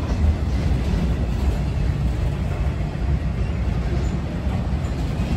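Freight train of autorack cars rolling past at close range: a steady low rumble of wheels on rail.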